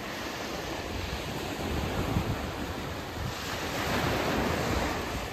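Gulf surf washing onto a sandy beach, with a wave swelling in about three seconds in. Wind buffets the microphone in low rumbles.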